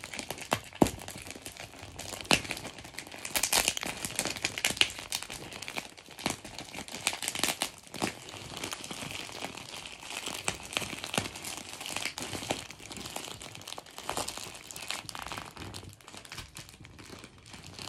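Shiny plastic mailing bag crinkling and crackling as hands grip and pull at it to open it. The crackles come in a continuous rush, with louder clusters every second or two.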